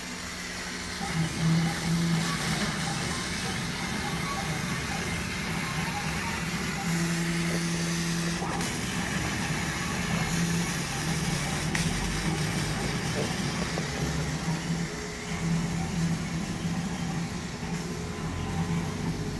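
Yueming CMA1309-X-A CO2 laser cutting machine at work: the gantry's drive motors hum in short, stop-start runs as the cutting head travels and changes direction, over a steady hiss of air.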